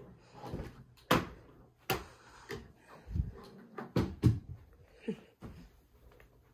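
Irregular knocks and thumps: two sharp knocks about one and two seconds in, then a cluster of duller low thumps near the middle and a few lighter ones after.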